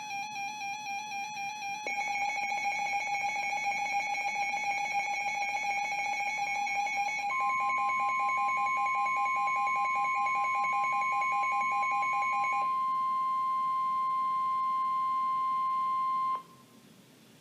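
Weather radio alert tones: a wavering electronic tone, joined about two seconds in by a faster pulsing tone. About seven seconds in, the steady 1050 Hz NOAA Weather Radio warning alarm tone starts; it carries on alone once the other tones stop and cuts off about a second before the end.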